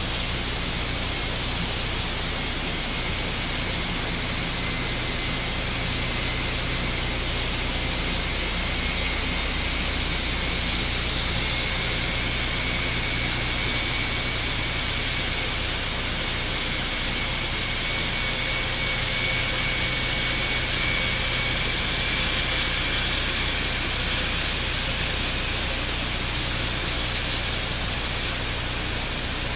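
Airbus A400M Atlas's four Europrop TP400-D6 turboprop engines and eight-bladed propellers running at taxi power as the aircraft rolls past. The sound is a steady, loud hissing whine with a low hum underneath.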